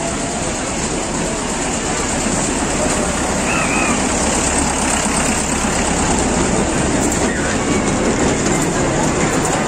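Small fairground kiddie train running along its track, a loud steady noise with faint voices and a few light clicks.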